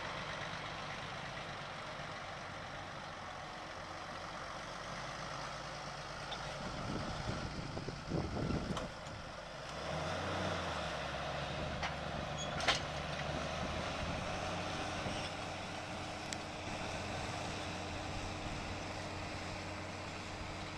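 Ursus 1934 tractor engine working steadily under load as it pulls a five-furrow plough through the soil. There is a brief louder rumble about eight seconds in and a single sharp click near the middle.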